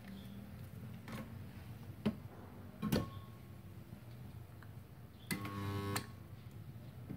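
Portable 2.5 kVA mini spot welder: a few sharp clicks as its lever arm is worked, then, a little over five seconds in, its transformer hums loudly for under a second as it fires a spot weld through two 0.5 mm steel plates.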